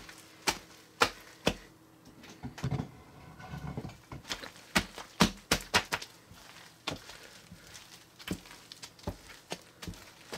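A hand squeezing and kneading a large mass of floam, a slime full of tiny foam beads, which crackles in sharp, irregular clicks. A softer, lower squelching runs for about a second and a half around three seconds in.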